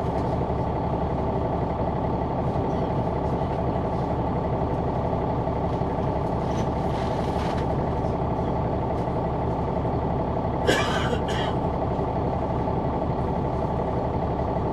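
Caterpillar C-9 ACERT diesel engine of a 2004 Neoplan AN459 articulated transit bus running steadily, heard inside the cabin from the rear seat. A short burst of hiss comes about two-thirds of the way through.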